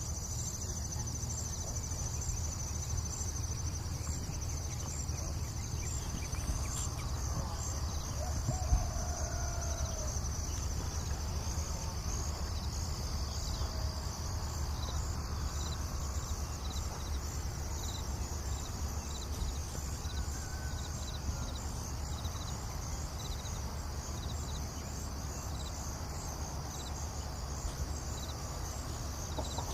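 Village morning ambience: insects chirring steadily in a high, rapidly pulsing band, with a few faint calls from birds or fowl and a low steady rumble underneath.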